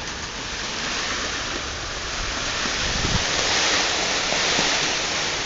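Rain from a nor'wester storm falling steadily, the hiss growing louder about two seconds in, with a brief low thump about three seconds in.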